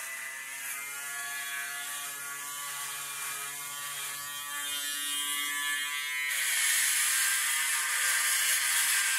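Braun Series 3 electric foil shaver running against the scalp, shaving off the last stubble of a clipped head. It makes a steady buzz that turns louder and harsher about six seconds in.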